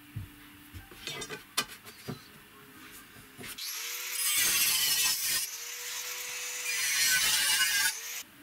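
Angle grinder with a thin cutting disc cutting through a steel plate held in a vise, in two passes: the motor spins up and the disc bites about three and a half seconds in, breaks off briefly, starts again and runs down near the end. Light handling clicks and knocks come before it.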